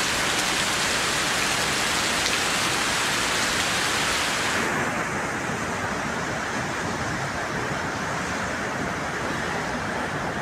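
Steady hiss of rain and floodwater on a flooded street, changing about five seconds in to a duller, steady rush of fast muddy floodwater.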